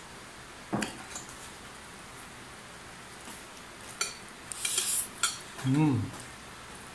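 Metal spoon and fork clinking against a ceramic bowl of noodles, then a short slurp as a forkful of noodles is sucked in, and a brief rising-and-falling 'mmm' hum through a full mouth, the loudest sound of the few seconds.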